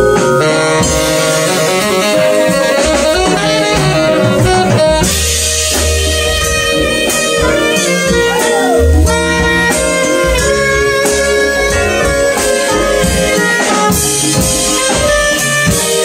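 Live jazz band playing: saxophone over vibraphone, drum kit and congas.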